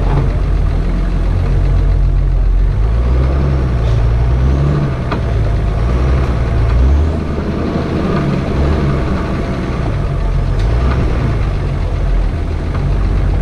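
Nissan Patrol 4x4's engine running steadily at low revs as it crawls over a rough forest track, with a few faint knocks.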